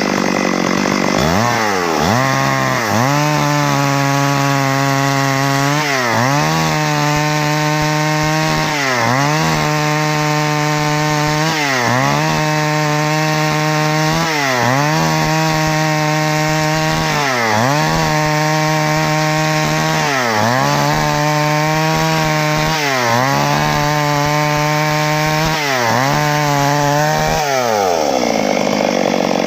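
Stihl MS 382 two-stroke chainsaw at high revs, apparently cutting wood after a stuck piston was freed. Its pitch dips briefly and climbs back about every three seconds, then winds down near the end.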